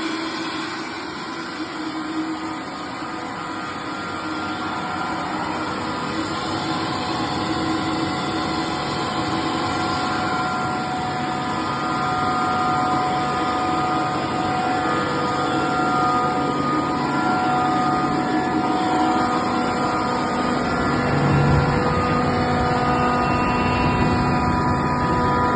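37 kW (50 hp) rotary screw air compressor running loaded and delivering air while its output is measured: a steady machine noise with several steady tones in it, slowly getting louder.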